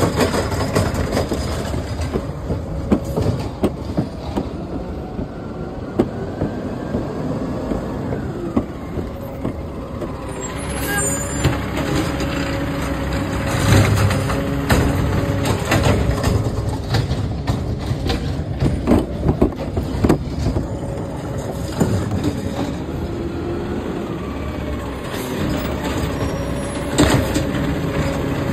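Automated side-loader garbage truck on a Peterbilt chassis, its diesel engine running while the hydraulic arm lifts a wheeled cart, tips it over the hopper and lowers it back down. Repeated knocks and bangs come mostly through the middle, as the cart is shaken out and the arm moves.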